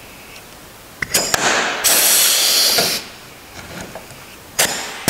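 Pneumatic rivet gun setting a blind rivet through a rudder hinge's pilot hole: two sharp clicks about a second in, then a loud hiss of air for about a second. Near the end another sharp click and a second hiss of air begins.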